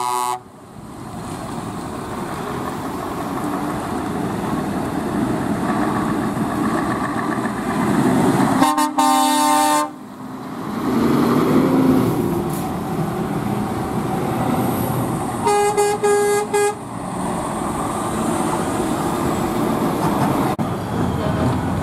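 Heavy trucks pulling away at low speed, their diesel engines revving through open exhaust pipes. A truck air horn gives one long blast about nine seconds in, and several short horn toots come around sixteen seconds in.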